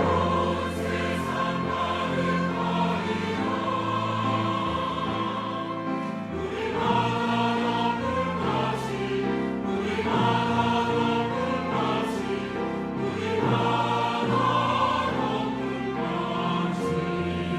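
Church choir singing a Korean sacred anthem, many voices holding long notes in harmony.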